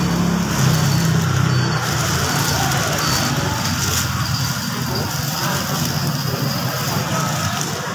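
Steady street traffic noise, with a passing vehicle engine humming in the first couple of seconds.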